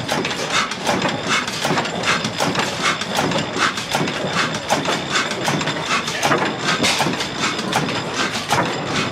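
Vintage Ruston horizontal stationary engine running, with an even, quick mechanical knocking of about four strokes a second.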